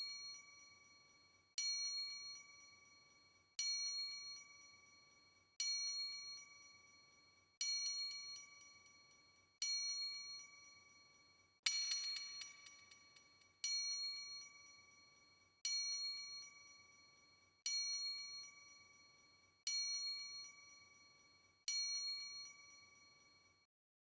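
A bell-like chime struck about every two seconds, the same pitch each time, each ding ringing briefly and fading away.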